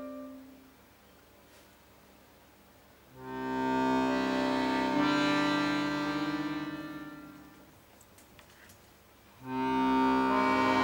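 Chromatic button accordion playing slow sustained chords: a chord dies away at the start, then after a pause a chord swells in about three seconds in, a lower bass note joins, and it fades out. After a second pause with a few faint clicks, a loud chord comes in near the end.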